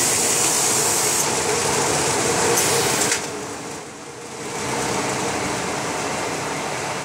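Fabric-roll packing machine running: steady mechanical running noise under a loud hiss that stops about three seconds in. The sound dips briefly, then the machine runs on more quietly.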